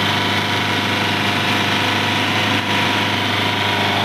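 Repaired Jeep's diesel engine idling steadily, with an even running note and no change in speed.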